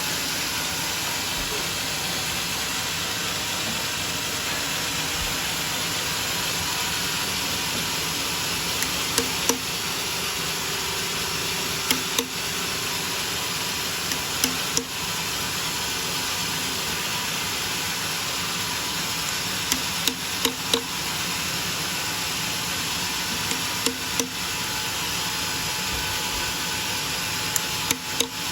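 A homemade sawmill's machinery runs with a steady noise. From about nine seconds in, sharp knocks come in twos and threes every few seconds.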